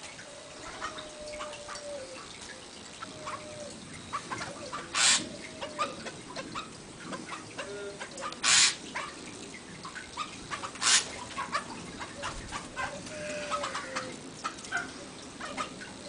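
Buffy laughingthrush calling: a short, low, slightly falling note repeated every second or two, over faint chirps and clicks. Three times a loud, brief rustling or scratching noise stands out above the calls.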